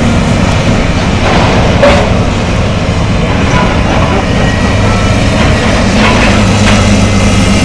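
John Deere excavator's diesel engine running steadily while it tears down a building, with crashing and clattering of debris about a second and a half in and again around six seconds.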